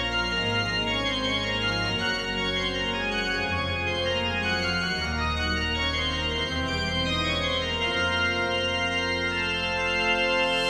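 Background music of sustained, organ-like keyboard chords that change slowly.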